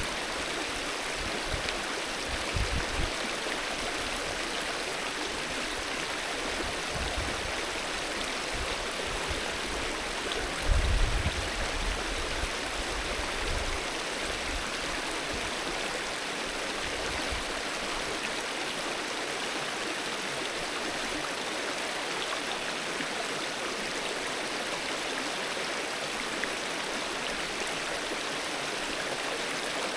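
Alpine river flowing: a steady, even rushing of water. A few brief low rumbles break in near the start, and the loudest comes about eleven seconds in.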